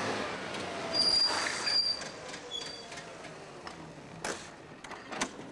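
Trabant estate pulling up on cobblestones with a high, thin brake squeal, loudest from about one to two seconds in and again briefly a moment later. A few sharp knocks follow near the end.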